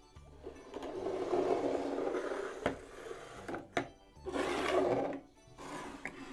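Slime being squished, stretched and kneaded by hand, wet crackling squelches that come in surges, with a couple of sharp pops from trapped air a few seconds in.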